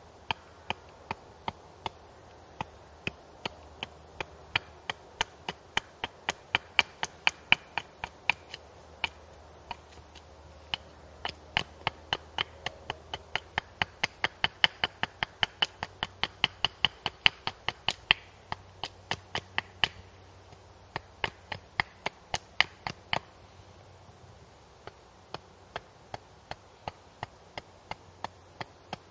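Small hatchet taking short chopping strokes at a wooden stick held upright on a stump, shaping it into a splitting wedge: a steady run of sharp wooden knocks, about two to three a second, quickening in the middle, with two brief pauses in the later part.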